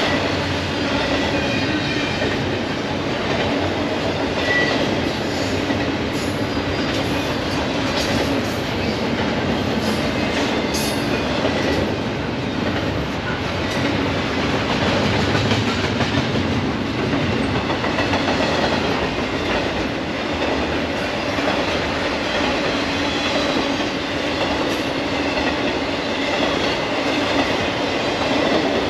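Double-stack intermodal freight cars rolling steadily past: a continuous rumble and clatter of steel wheels on the rails, with a few brief high wheel squeals.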